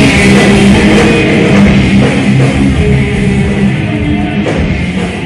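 Heavy metal band playing live and loud, with distorted electric guitars and a drum kit in full swing.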